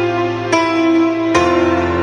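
Background music: melodic notes starting anew about half a second and again about a second and a third in, each fading slowly, over a steady low bass note.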